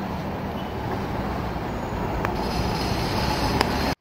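Articulated city bus pulling away, its engine running steadily under street traffic noise, with two short clicks in the second half. The sound cuts off abruptly just before the end.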